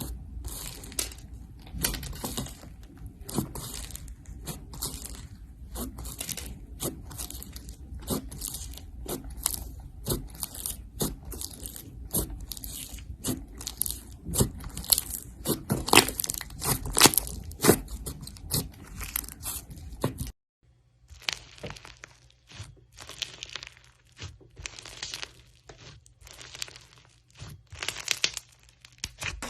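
Slime being squeezed and worked by hand, giving rapid, irregular crackles and pops. The sound breaks off briefly about two-thirds of the way through, then resumes over a faint low hum.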